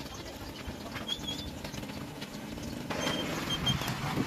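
Gas torch flame hissing as it melts aluminum onto a steel bar, with small metallic clicks; the hiss grows louder about three seconds in.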